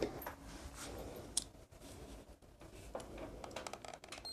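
Faint clicks and light knocks of hands handling wooden battens and tools on a wooden tabletop, with a sharper click about a second and a half in.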